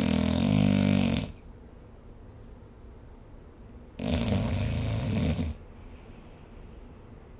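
A sleeping person snoring: two loud, rattling snores about four seconds apart, each lasting a little over a second.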